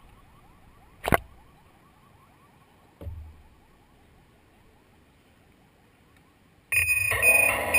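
Faint rapid chirping with a sharp click about a second in and a low thump at three seconds. Near the end the hexacopter's electric motors start up suddenly with a loud whirring whine.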